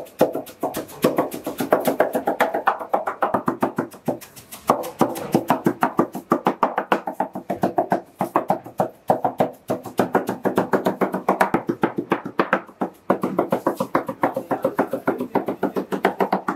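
Background music of fast, evenly strummed plucked strings, about seven strokes a second, with the chord changing every few seconds.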